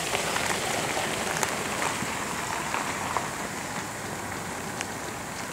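A swarm of plague locusts flushed up from the grass, their wings making a dense, even hiss scattered with many small ticks, easing a little in the second half.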